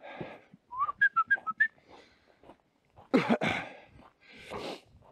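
A person whistling a short signal to a dog: one brief rising note, then about five quick short notes, a contact whistle to a hunting labrador. A couple of short noisy sounds follow about three seconds in.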